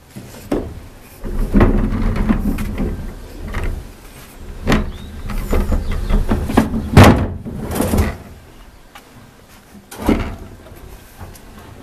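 Plastic wheelie bin being moved and handled: a low rumble of its wheels rolling over paving, with several sharp knocks and thumps of the plastic body and lid, the loudest about seven seconds in.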